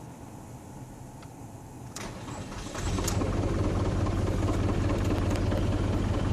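Ford Mondeo 2.0 TDCi diesel engine starting: about two seconds in it turns over and catches within a second, then runs steadily with scattered sharp ticks. It is the engine showing the bad noise its owner reports since it ran out of diesel.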